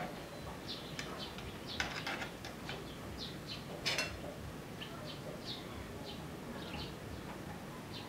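Metal spoon and fork clinking on a ceramic plate a few times, the loudest about halfway through, over birds chirping in short, repeated high notes.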